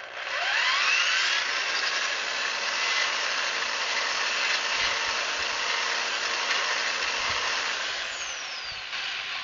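Corded electric drill spinning up with a rising whine, running steadily with its bit turning in a bore of a brake caliper bracket to clean it out, then winding down near the end.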